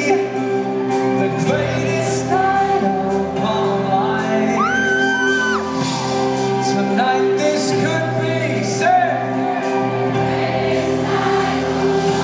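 Live pop band playing an upbeat song, keyboards, piano and electric guitar under a male lead vocal, in a large concert hall. About halfway through, the singer holds one long high note.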